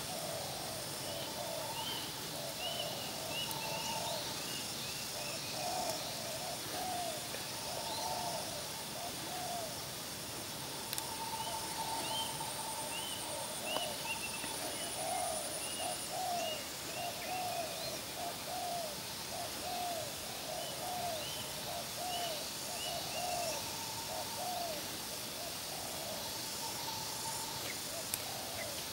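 Spotted doves cooing: a long run of short, low coos that rise and fall, repeated over and over. Runs of faint, high chirping notes from another bird sit above them.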